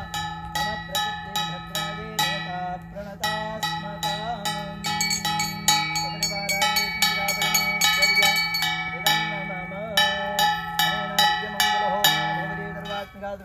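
Brass puja hand bell (ghanta) rung steadily, about two to three strikes a second, each strike ringing on. Under it run a steady low drone and a wavering melodic line.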